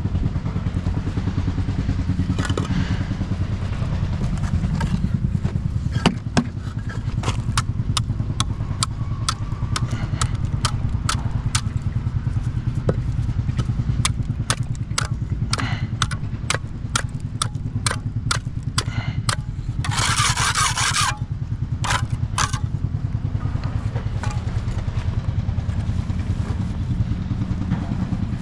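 An engine running steadily with a low rumble, overlaid by a long run of sharp clicks and knocks and a brief hissing burst about two-thirds of the way through.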